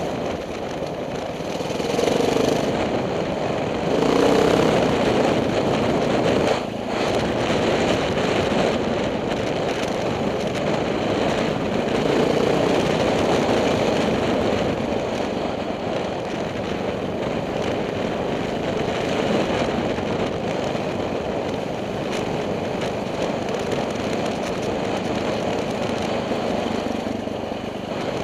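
KTM 620 LC4 single-cylinder four-stroke motorcycle engine running under way. It is a little louder in the first few seconds and drops briefly about six and a half seconds in.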